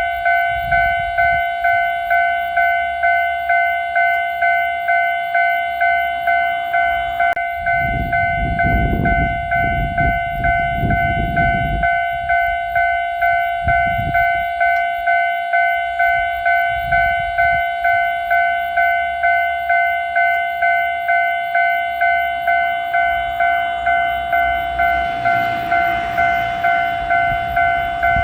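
Japanese railway level-crossing warning bell ringing, a steady high ding repeating fast and evenly. Under it a low rumble comes and goes, and grows near the end as a train approaches the crossing.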